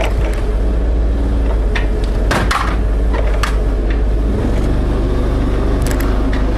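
Propane forklift engine running while it drags a welder-generator on a wooden pallet across asphalt, its pitch creeping up in the second half. Sharp knocks and clanks come several times as the pallet and tow line are jerked along.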